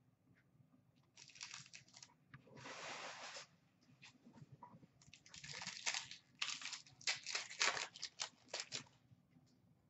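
Foil trading-card pack wrappers crinkling and tearing as hockey card packs are ripped open by hand, in a series of short rustling bursts with a longer one about three seconds in.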